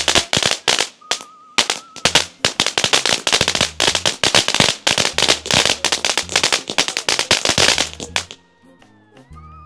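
A 金三角 (Golden Triangle) firework going off in a rapid, irregular string of sharp cracks and bangs, several a second, which cuts off about eight seconds in. After it, background music with a whistle-like melody plays.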